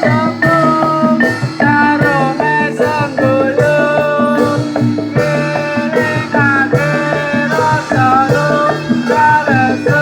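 Loud music with a steady percussion beat, steady bass notes and a melody of sliding, bending notes, typical of the band that accompanies a jatilan horse dance.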